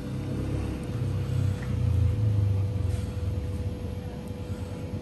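Low rumble of a passing motor vehicle, swelling to its loudest about two seconds in and then fading, over a steady faint hum.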